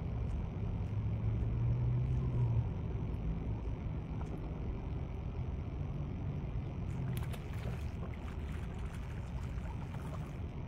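Steady low rumble of distant road traffic, with a deeper engine hum that holds for the first two and a half seconds and then fades back into it. A few faint ticks come later on.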